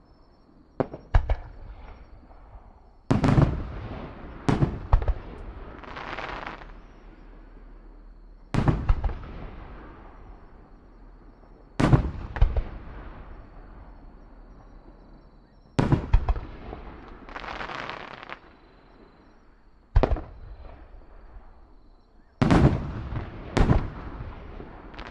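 Fireworks going off: loud sharp bangs every few seconds, several in quick pairs, each dying away, with some followed by a second or so of crackling.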